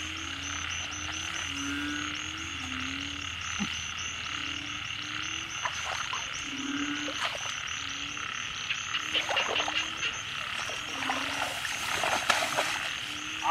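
Frogs croaking in short, low calls, roughly one or two a second, over a steady high trilling chorus.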